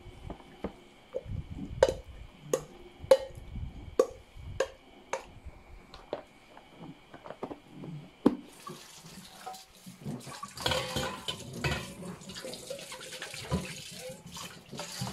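A spoon knocking and scraping against a stainless steel mixing bowl as coleslaw is scooped into a plastic container, a dozen or so sharp clicks, then a plastic lid pressed on. Just over halfway, a tap starts running into a stainless steel bowl in the sink, a steady splashing hiss as a hand rinses the bowl.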